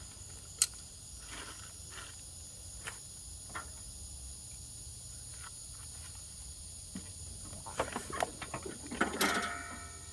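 Light, scattered clicks and knocks of handling over a low steady hum. There is a sharp click about half a second in and a denser run of clicking and rattling near the end.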